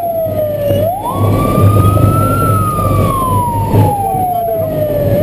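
A siren wailing in long cycles: its pitch slides slowly down, then jumps quickly back up about a second in and again near the end. A steady low engine hum and road noise sit underneath.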